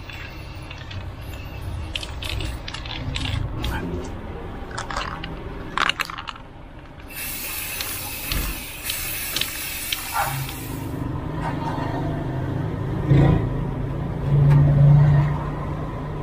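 Aerosol can of flat black high-heat spray paint spraying in one hiss of about four seconds, starting about seven seconds in, with scattered short clicks before it. A low engine hum grows over the second half.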